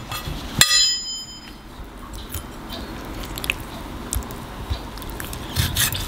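A single bright ding about half a second in, ringing out for about a second. Then faint scattered clicks and scrapes of a knife and fork cutting into a stuffed chicken thigh on a plate, growing louder near the end.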